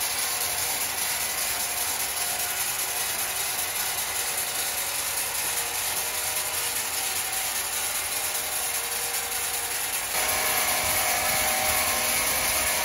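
Sawmill machinery running with a steady, rapid mechanical rattle, getting louder about ten seconds in.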